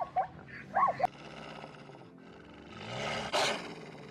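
Animal calls: a few short calls that bend up and down in pitch, then, about three seconds in, a low growl that rises and falls, with a sharp burst of noise.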